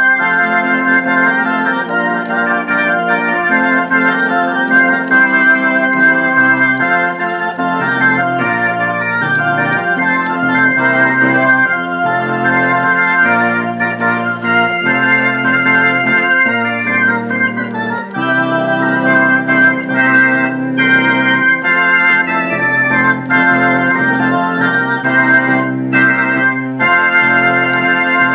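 Theatre organ playing a Christmas carol: sustained chords in both hands over a bass line that steps from note to note.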